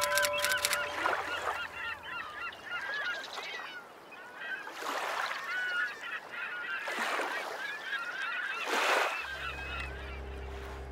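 A flock of water birds honking and calling, many short overlapping calls, with several swells of rushing noise that rise and fall. A low steady hum comes in near the end.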